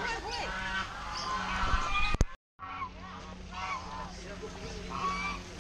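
Domestic geese honking, four or so separate calls in the second half after a sudden break in the sound. People's voices chatter before the break.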